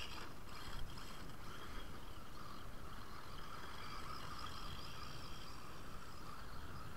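Radio-controlled car driving over dirt, its motor giving a steady whine.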